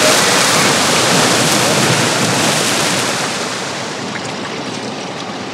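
Sea swell washing over a rock ledge: a loud rush of foaming surf that slowly dies away.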